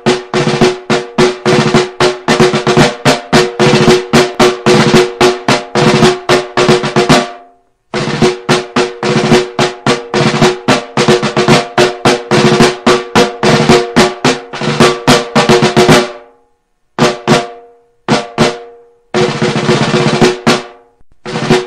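Marching snare drum cadence: quick, even drum strokes with rolls, played with a ringing drum tone. The playing stops briefly several times, once about a third of the way through and a few times in the last third.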